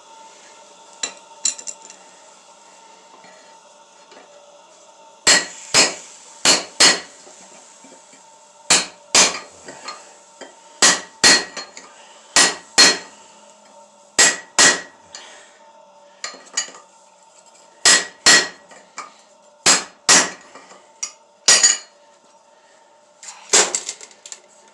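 Hand hammer striking steel on an anvil, sharp ringing blows mostly in pairs, starting about five seconds in and coming every second or two, over a steady hum.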